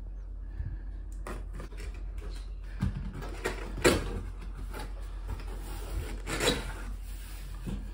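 Cardboard shipping box being cut open with a knife and its flaps pulled, making irregular scraping and rustling with two louder rips about four and six and a half seconds in.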